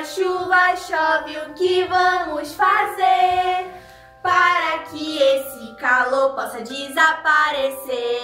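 Women's voices singing a children's song over backing music with sustained notes, pausing briefly between phrases about four seconds in.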